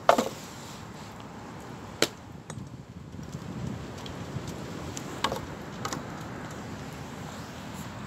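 A glass rum bottle knocks sharply against the wooden table and clinks a few more times, and rum is poured from it into a metal travel mug of coffee.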